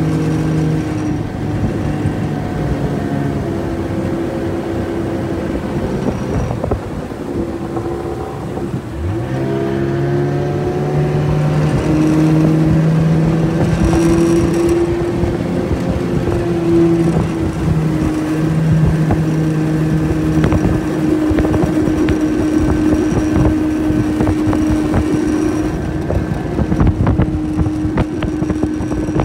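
25 hp Johnson outboard motor running a 14 ft jon boat under way; its note drops briefly about a third of the way through, then climbs back and holds steady. Wind buffets the microphone toward the end.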